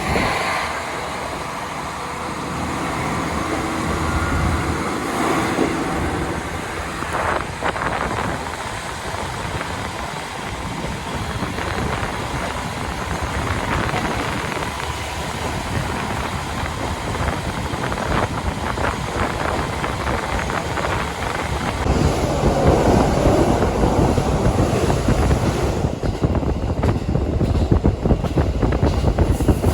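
KiHa 40 diesel railcar running along the line, heard from inside: a steady mix of diesel engine and wheels on the rails, getting louder about two thirds of the way in.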